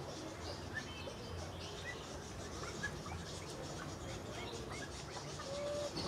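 Birds chirping and calling: many short, scattered chirps overlapping, with one brief held whistle near the end.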